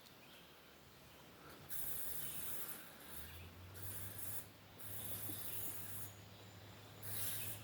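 Distant car engine on a dirt road, a low steady hum that comes in about three seconds in and keeps on, approaching. Over it, stretches of high-pitched hissing come and go several times.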